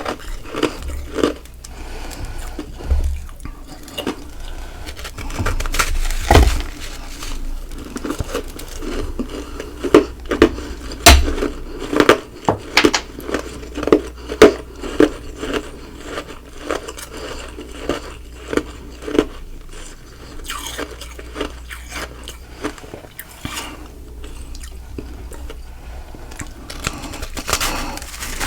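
Close-miked biting and chewing of ice, humidifier frost packed around Sonic nugget ice: crisp crunches, with two loud bites and then a run of about two crunches a second before the chewing quietens.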